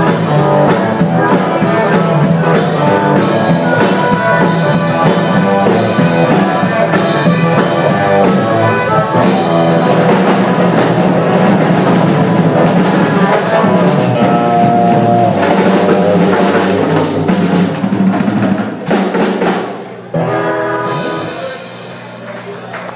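Live rock band playing: electric guitar, bass guitar, drum kit and harmonica. Near the end the band drops out, hits a last accent and lets the final chord ring out.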